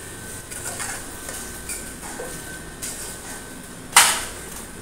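Kitchen clatter of pots and utensils: a few light clinks, then one loud clank about four seconds in.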